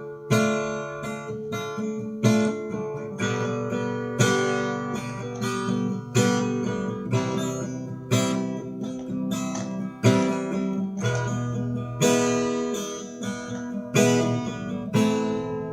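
Acoustic guitar strummed in a steady rhythm with an accented stroke about once a second, playing the instrumental break of a Malay pop ballad between sung verses.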